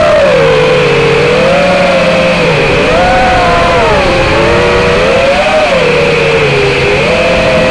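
Wizard X220 FPV racing quadcopter's brushless motors and propellers whining loudly, recorded by its onboard camera. The pitch rises and falls every second or so as the throttle changes.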